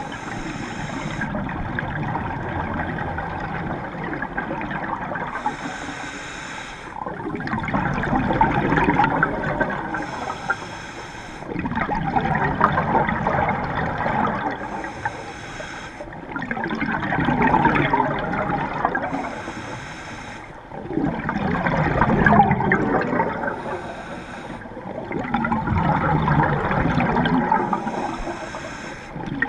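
Scuba diver breathing through a regulator underwater: a short hiss on each inhale, then a longer burst of bubbling as the exhaled air rushes out, repeating about every four to five seconds.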